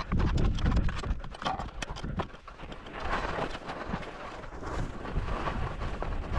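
Skis clattering and scraping over rock and thin, patchy snow, a quick run of knocks, then sliding steadily over snow from about three seconds in.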